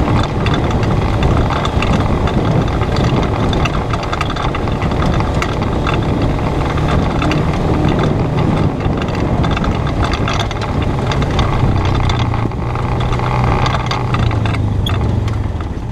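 Polaris RZR 570 side-by-side's single-cylinder engine running under way on a gravel trail, with tyres crackling over stones and the machine rattling. About twelve seconds in, the engine note drops and holds steadier as it slows.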